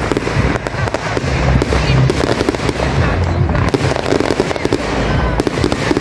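Fireworks going off in a dense, unbroken barrage: rapid bangs and crackle of bursting aerial shells, one after another with no pause.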